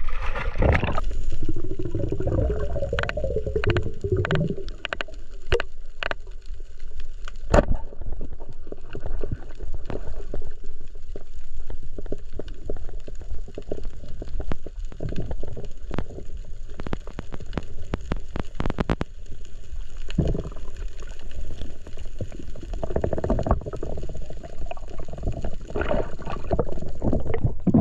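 Underwater sound heard through an action camera's waterproof housing: a muffled low rumble of moving water with gurgling and scattered clicks and knocks.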